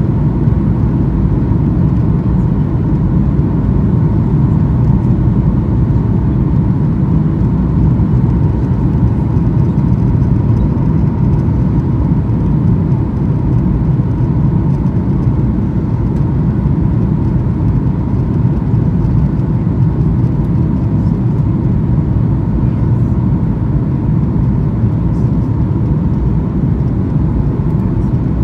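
Steady cabin noise of a Boeing 737-900 in descent on approach, heard inside the cabin: a low rumble of airflow and CFM56-7B turbofan engines, with a faint steady whine above it.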